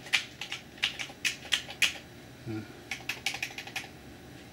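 Keys on a Commodore 128's keyboard being pressed rapidly in two quick bursts of clicks, the second starting about three seconds in, while testing keys that fail to register.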